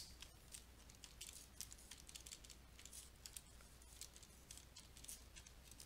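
Near silence: room tone with a low steady hum and faint scattered clicks.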